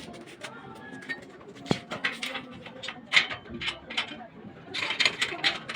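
Irregular clicks and knocks from hand work on a homemade bandsaw's drive wheel assembly, a few of them sharper and louder about three and five seconds in.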